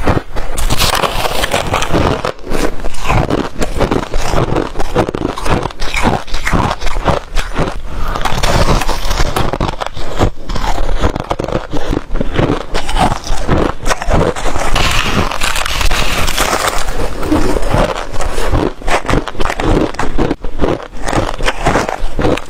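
Close-miked crunching of freezer frost being bitten and chewed: dense, irregular crackling crunches that go on without a break.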